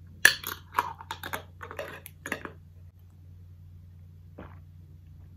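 A quick run of sharp clicks and light knocks for about two seconds, the first the loudest, then one soft knock near the end: a jar, a spoon and a plastic cup being handled.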